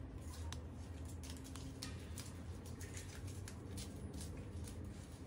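Paper crackling and rustling in quick, irregular crinkles as a toy poodle noses through crumpled A4 paper scraps, hunting for treats hidden inside. A steady low hum runs underneath.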